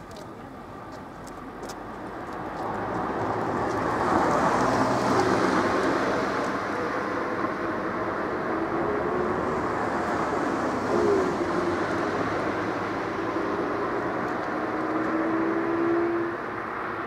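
Road traffic: a motor vehicle running close by, its steady hum rising slightly in pitch. It grows louder about three seconds in and drops off near the end.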